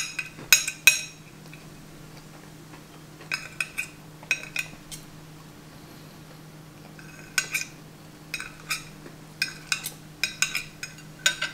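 Metal fork and knife clinking and scraping on a ceramic plate as the last food is pushed onto the fork. The taps come in short ringing clusters with pauses between them.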